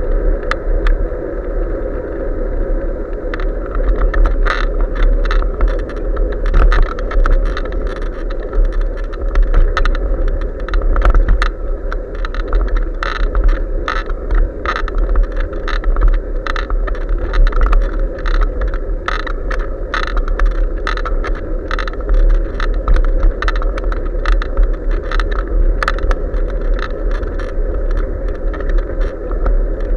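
Riding noise from a bicycle picked up by a bike-mounted action camera: a steady rumble of wind and tyres on asphalt, with frequent irregular rattling clicks from the bike and camera mount on the rough road.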